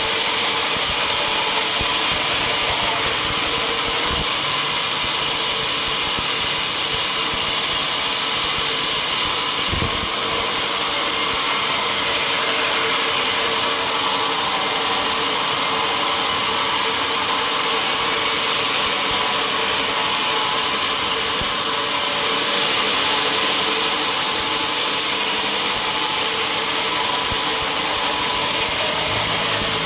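A sawmill running steadily, its engine-driven saw making a loud, even, unbroken noise.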